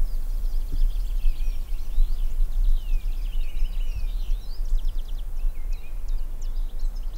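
Several small songbirds chirping and twittering, with quick whistled notes and short rapid trills, over a steady low rumble.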